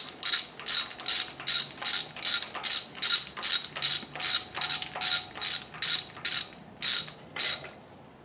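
Hand ratchet clicking in quick, evenly spaced bursts, about three strokes a second, as bolts on the engine block are run down snug; the clicking stops about seven and a half seconds in.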